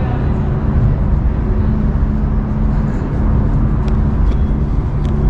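Steady low machine hum with a constant droning pitch, which the walkers take for the big motors of a riverside water pump. A few faint ticks come near the end.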